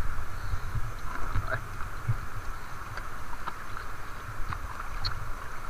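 Outdoor ambience: a steady low rumble on the microphone with a hiss, and scattered light clicks and taps.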